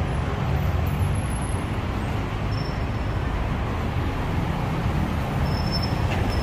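Steady road traffic noise from motor vehicles on the street, an even rumble with no single sound standing out.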